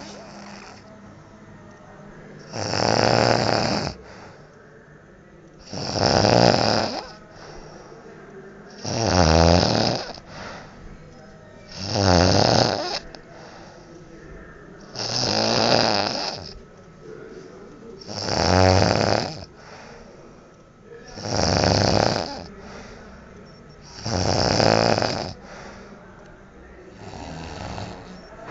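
A man snoring loudly in his sleep: a long snore about every three seconds, nine in all, the last one weaker.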